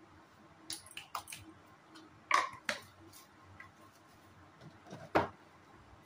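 Kitchen utensils and containers being handled: a scatter of short clinks and knocks, the loudest a pair about two and a half seconds in and a single knock a little after five seconds.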